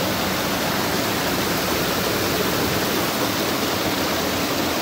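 Steady rushing of flowing river water, an even hiss with no let-up.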